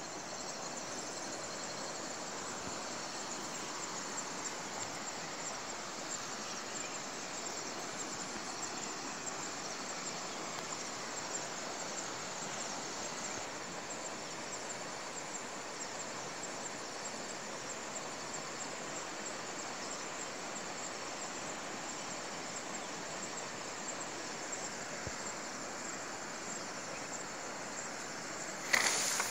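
Steady chorus of insects chirring in a constant high band over an even background hiss. A brief loud burst of noise near the end.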